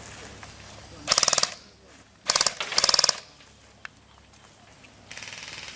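Airsoft BB guns firing short rapid-fire bursts: four bursts of fast, evenly spaced clicks, the last one fainter.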